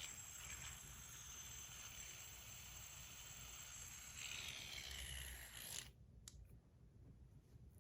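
Stainless steel NJT Nebu bar fidget spinner whirring on its full ceramic bearing, a faint steady high hiss. It is stopped abruptly about six seconds in, followed by a small click.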